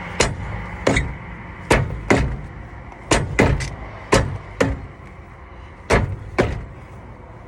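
Repeated kicks thudding against a car wheel and tyre to free a wheel stuck on its hub. There are about eleven blows, several of them in quick pairs, spaced unevenly.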